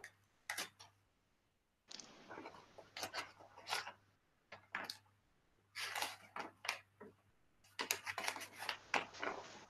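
Paper coffee filter crinkling and rustling in short, irregular bursts as it is handled, folded and cut with scissors to make a face mask.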